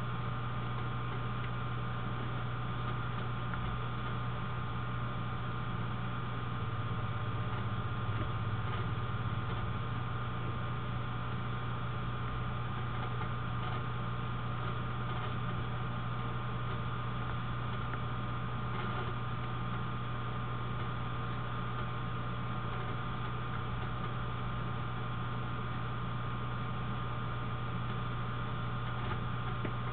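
Steady low electrical hum with an even hiss over it and a few faint steady higher tones, picked up through a computer's sound recording input.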